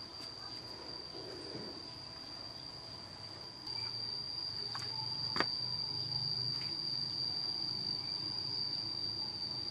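An insect's steady, unbroken high-pitched trill, which gets louder a little over a third of the way in. A single sharp click comes about halfway through.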